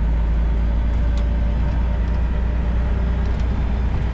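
Semi truck's diesel engine running steadily under way, heard from inside the cab as a loud, even low drone with road rumble over rough pavement.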